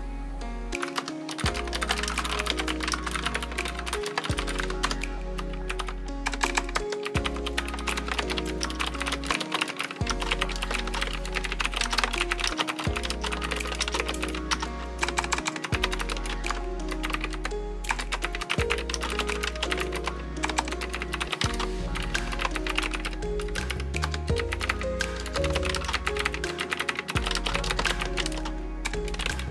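Continuous fast typing on an AZIO Retro Classic typewriter-style mechanical keyboard with clicky blue switches, a dense run of key clicks, over background music with a repeating bass line.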